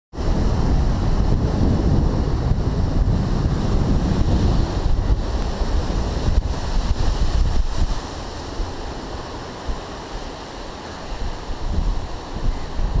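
Sea surf breaking on a rocky shore, with wind buffeting the microphone. The low wind rumble is heavy for the first two-thirds, eases off, then picks up again near the end.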